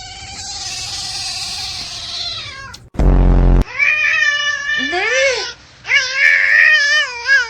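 A cat meowing in long, drawn-out calls: one long wavering meow, then several more, one rising and falling in pitch. A short, loud low buzz cuts in about three seconds in.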